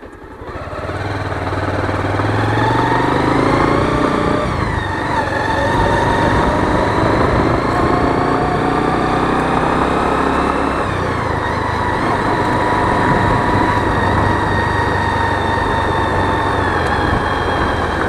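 Motorcycle engine running as the bike rides along, heard from on board. The engine note climbs, drops sharply about four seconds in and again about eleven seconds in, then holds steady.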